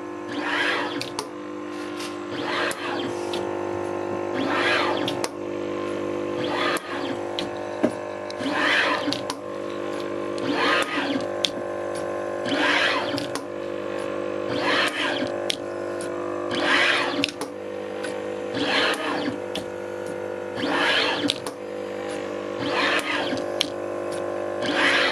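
DIY pick-and-place machine running a repeating vacuum-nozzle test cycle: a steady machine hum throughout, with a short burst of noise about every two seconds as the nozzle head cycles over the component tape.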